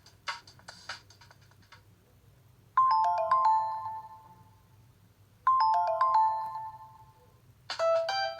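Nokia Lumia 520 ringtones and alert tones: a few clicky percussive beats fade out, then a short bright chime of descending notes sounds twice about three seconds apart, each one ringing away. Near the end a busier melodic tone begins.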